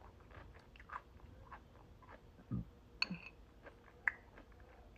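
Chewing crunchy cucumber salad close to the microphone: scattered small crunches and wet mouth clicks, with a sharper click about three seconds in and another about a second later.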